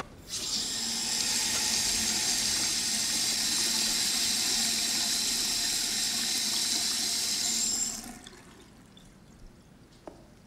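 Water running from a chrome bathroom tap into a ceramic sink basin, a steady rush that starts just after the tap is opened and stops about eight seconds in when it is turned off.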